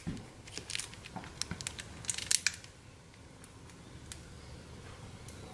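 Plastic squeeze bottle of dulce de leche being squeezed over a cheesecake: a run of sharp crackles and clicks that dies out about halfway through.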